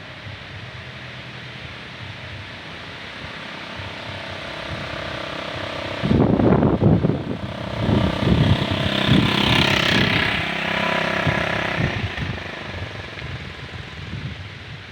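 Wind gusting through mahogany trees, with leaves rustling. About six seconds in, a strong gust buffets the microphone with loud low rumbling and hiss for several seconds, then eases.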